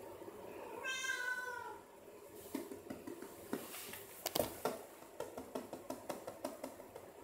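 Domestic cat meowing once, a single call of about a second that dips slightly in pitch at its end. A scattered run of light clicks and knocks follows, the loudest a little past the middle.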